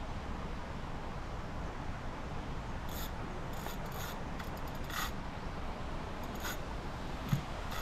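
Fishing reel clicking in short, irregular runs while a hooked fish is being played, over a steady low rumble; a dull thump near the end.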